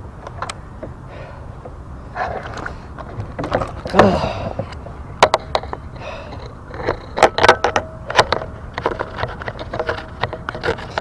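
Handling noise as a freshly landed largemouth bass is lifted into a kayak and unhooked and cleared of weed by hand: scattered clicks and knocks over a steady low background noise. A louder knock comes about four seconds in, and the clicks come thicker from about halfway on.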